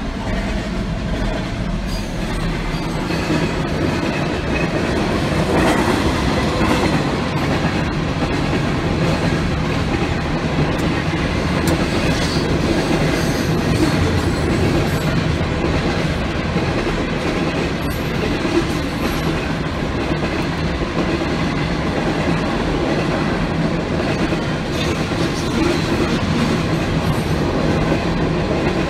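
Freight train cars rolling steadily through a grade crossing, with the clatter of wheels on rail, heard from inside a stopped car.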